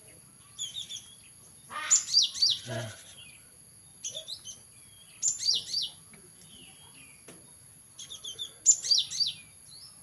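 Gelatik batu (cinereous tit) singing: short phrases of two or three quick, high, falling notes, repeated several times a second or two apart.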